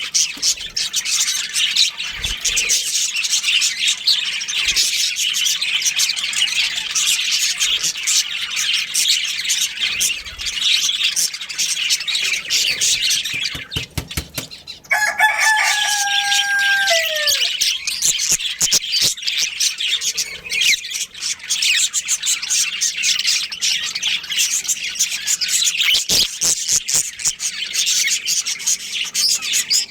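A budgerigar colony chattering and chirping continuously in dense, high twittering. About halfway through, a rooster crows once, a long call held steady that falls away at the end.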